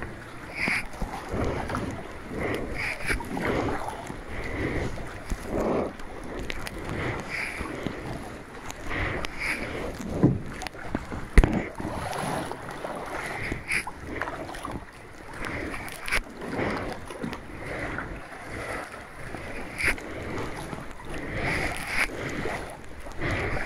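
Kayak paddles splashing and water sloshing around a plastic kayak, in uneven swells, with wind on the microphone. There is a sharp knock about eleven seconds in.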